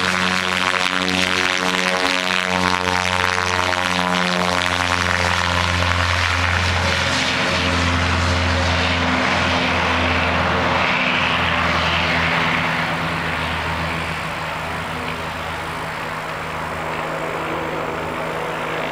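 Cessna 337 Skymaster's front and rear piston engines, in push-pull layout, running at takeoff power: a loud, steady propeller drone made of several tones at once. It grows fainter after about thirteen seconds as the plane climbs away.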